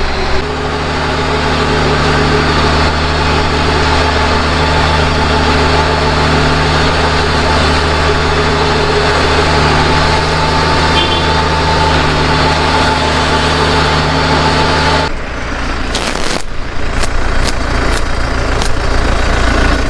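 Tractor engine running at a steady speed. About fifteen seconds in, the engine note drops and a few sharp knocks follow.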